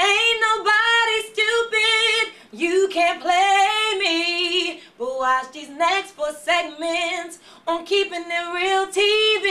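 A woman singing solo without accompaniment, in several phrases of long held notes with vibrato.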